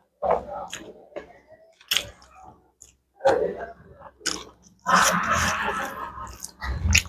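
Close-miked chewing and biting of food, with some crunching: a run of separate bites and chews, then denser, louder chewing about five seconds in.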